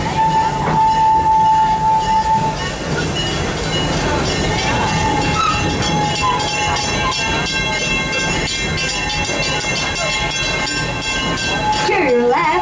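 Theme-park passenger train running, heard from inside an open-sided car: a steady rumble of the wheels on the track with light clicking, and a steady high whine for the first two seconds or so, then fainter high tones.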